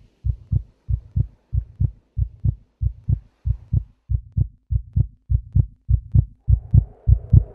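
Heartbeat sound effect: steady lub-dub double beats, about one and a half a second, growing louder toward the end. A hum rises in under it about six and a half seconds in.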